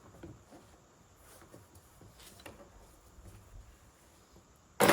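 Faint clicks and handling rustles, then a reciprocating saw starts up suddenly and loudly right at the end.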